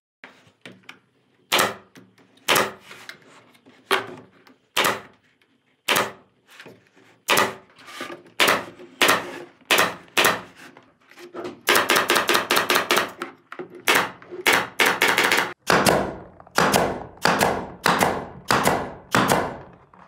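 A pneumatic nail or staple gun firing sharp shots as a thin bent strip is fastened around the edge of a round board. The shots come about once a second at first, then more often, with a quick burst of rapid shots about twelve seconds in and heavier shots about two a second near the end.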